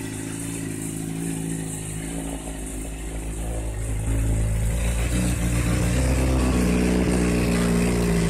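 Scooter engine running at idle, a steady note that shifts in pitch about two seconds in and grows louder about four seconds in.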